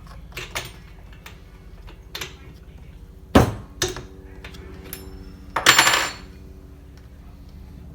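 Metal tools and parts being handled on a workbench: a series of clinks and knocks, the loudest about three and a half seconds in, then a longer rattling clatter with a ringing edge near six seconds in, over a steady low hum.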